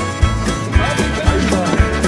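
Country-style background music with a quick steady beat, about four strokes a second, and a gliding melody line over it.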